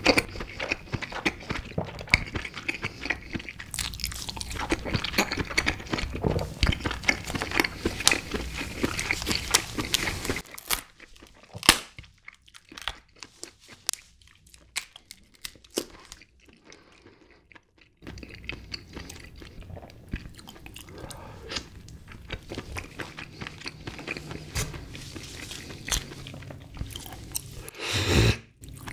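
Close-miked eating of red king crab: chewing and crunching of the crab meat and shell, and gloved hands breaking the legs apart and pulling the meat out. Dense chewing fills the first ten seconds or so. The middle is quieter, with a sharp crack about twelve seconds in, and there is a louder sound near the end.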